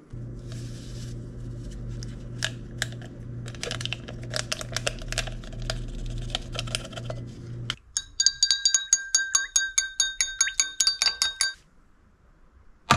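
Water running into a glass over orange MRE drink powder, with a steady electric hum. About 8 s in, a spoon stirs the drink, clinking quickly and evenly against the ringing glass for about four seconds. One sharp knock comes at the very end.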